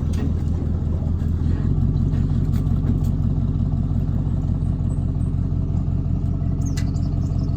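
Engine of the vehicle towing the boat trailer running steadily, working a little harder about a second and a half in.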